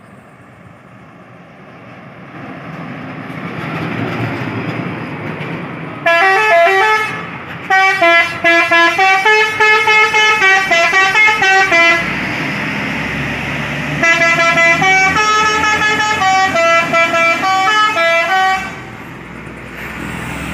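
A vehicle approaches with noise swelling over the first few seconds, then a modified truck's musical 'telolet' air horn plays a multi-note tune, stepping between pitches, in two phrases of about six and about four and a half seconds, with engine rumble in the gap between them.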